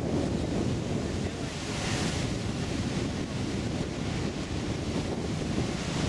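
Heavy ocean surf breaking and churning against a lava-rock shoreline, a steady low roar, with wind buffeting the microphone. A brighter rush of hiss swells about two seconds in.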